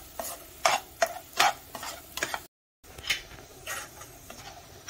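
Perforated metal spatula scraping and stirring thick masala paste in a nonstick kadai, in repeated strokes about one or two a second, broken by a brief gap of silence about halfway.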